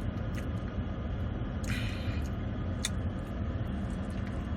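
Steady low rumble of a car idling, with a short rustle about two seconds in and a sharp click near three seconds.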